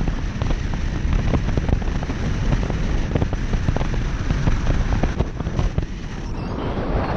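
Car driving along a rough forest road, heard from a camera mounted outside the car. Low wind rumble on the microphone is the loudest sound, over a steady crackle of tyres on a loose, gravelly surface.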